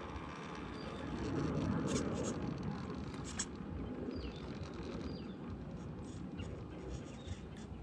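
Small electric RC rock crawler working over rocks: a low steady running noise from its motor and drivetrain, swelling about a second and a half in, with a couple of sharp clicks of hard parts on stone around two and three and a half seconds in.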